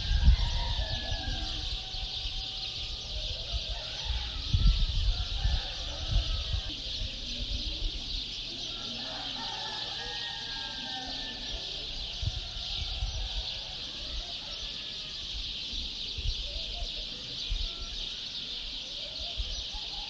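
Birds calling at dawn, short calls and whistled glides coming and going over a steady high hiss, with irregular low rumbles that are loudest near the start and about four seconds in.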